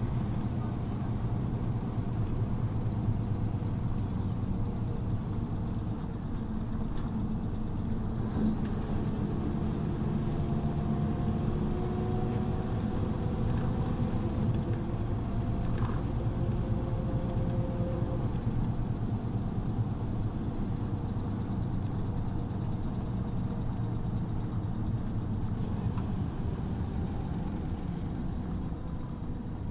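Scania OmniLink city bus running steadily, its engine a constant low drone. Midway, faint tones rise and fall in pitch, with a faint high whine among them.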